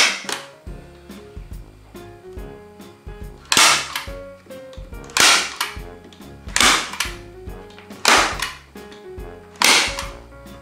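Hand-held staple gun firing staples through nylon webbing into pine slats: six sharp snaps, the first right at the start and the rest about one every one and a half seconds.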